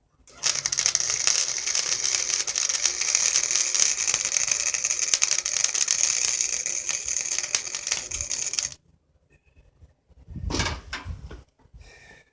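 Electric arc welder running a weld: a steady, dense crackle that starts about half a second in and cuts off suddenly after about eight seconds.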